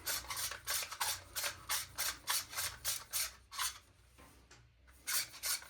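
A hand tool backing out a screw from the airsoft rifle's stock, making short rasping strokes about four or five a second. The strokes pause for about a second near the end, then start again.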